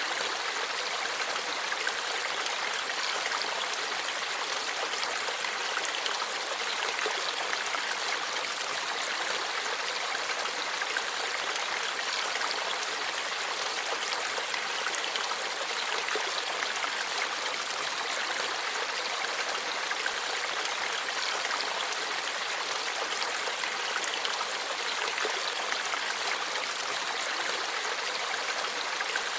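Forest stream flowing over rocks, a steady babbling rush of water.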